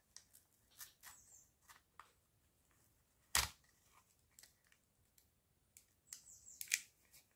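Faint clicks and scrapes of a plastic card being worked under a Samsung Galaxy S6's glued-in battery to pry it loose, with one sharp click about three and a half seconds in and a longer scrape near the end.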